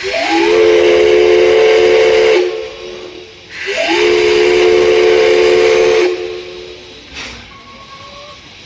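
Steam whistle of the C11 325 tank locomotive blowing two long blasts of about two and a half seconds each, a second apart. Each blast sounds a chord of several tones with a hiss of steam, and its pitch slides up as it starts.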